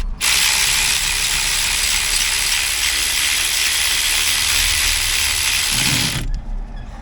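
Ratchet wrench turning a bolt in one continuous run of about six seconds, an even, high clattering buzz that stops abruptly near the end.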